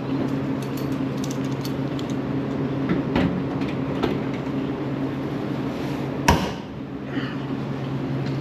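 Steady machine hum from the running laser cutting machine, with light handling ticks and knocks on the sheet metal, and one sharp, loud knock about six seconds in.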